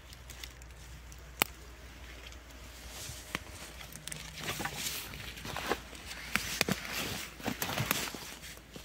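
Footsteps crunching and rustling through dry fallen leaves and twigs. There is a sharp click about a second and a half in, then a denser run of crackling rustles from about four and a half seconds until near the end.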